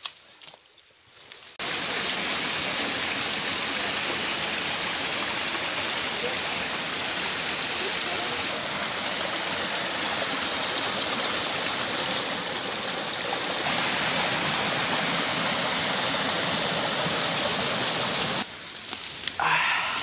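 Small forest stream rushing and splashing over rocks, a steady rushing of water that starts abruptly a couple of seconds in and cuts off abruptly near the end.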